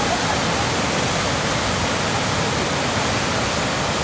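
Brown, sediment-laden river in flood, churning water rushing steadily over a drop in the channel and carrying material along.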